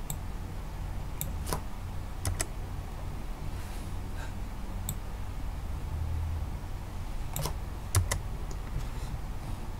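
Computer keyboard keys pressed in scattered clicks, some in quick pairs, with pauses between, over a low steady hum.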